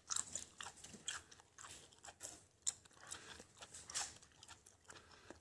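Faint, irregular wet smacks and clicks of a mouth chewing a large wad of about four pieces of chewing gum.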